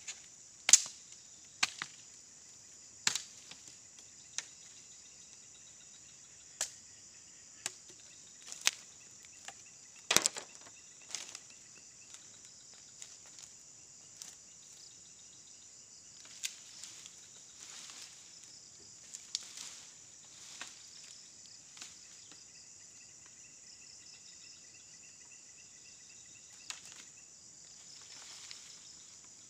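Dry bamboo stalks cracking and snapping as they are broken off and dragged out of brush: about twenty sharp cracks, closer together in the first half and more scattered later. Under them, a steady high chirring of insects.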